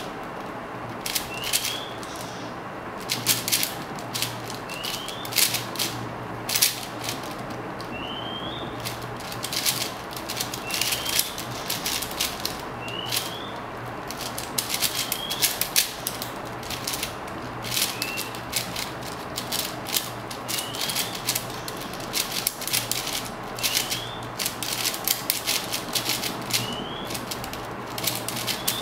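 Irregular, rapid clicking and clacking of a 4x4 puzzle cube being turned fast by hand. A short rising chirp repeats about every two seconds behind it, over a faint steady hum.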